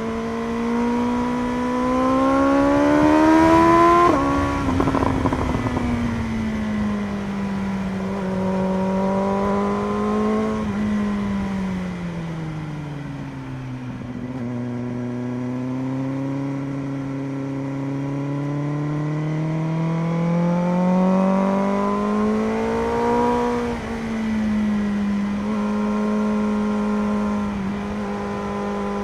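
BMW M1000RR's inline-four engine under way. It revs up and drops sharply with an upshift about four seconds in, then rises, falls away as the bike slows, and climbs again into a second quick shift drop near the end before holding a steady pitch.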